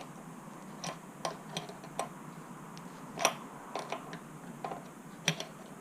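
Scattered light clicks and taps at uneven intervals from hand work on the bike, with a sharper tap about three seconds in and another near the end.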